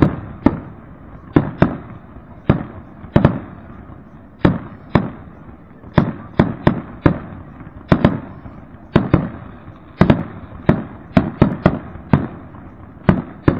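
Aerial fireworks bursting in quick succession: sharp bangs at an uneven pace of one to three a second, each dying away quickly.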